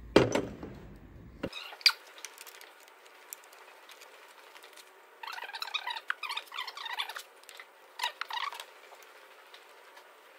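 Milwaukee 3/8-inch cordless battery ratchet buzzing in short bursts as it winds a new water pump's three bolts in to a light nip: two longer bursts about five to seven seconds in and a short one near eight seconds, with a few light clicks before them.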